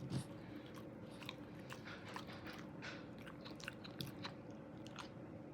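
English bulldog puppy chewing and crunching a snack, with a quick irregular run of crunches and mouth clicks and one louder knock just after the start.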